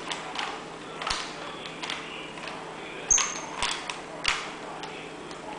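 Rubik's cube being turned by hand: its plastic layers click and clack in irregular twists, a click every half second to a second. About three seconds in, the loudest click comes with a brief high squeak.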